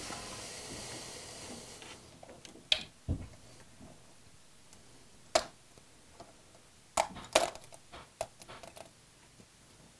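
Steel print sheet from an Original Prusa i3 MK3 sliding across a cutting mat with a soft hiss that fades. Then a series of sharp clicks and small taps as a 3D-printed plastic snake is pressed, flexed and picked off the sheet by hand.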